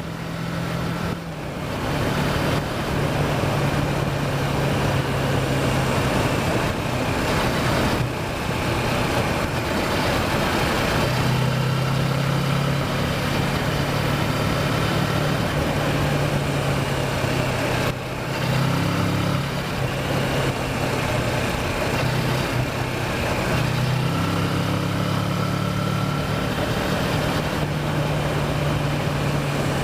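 Kawasaki Versys motorcycle engine running as it is ridden, the engine note shifting in pitch several times with throttle and gear changes, over steady wind and road noise.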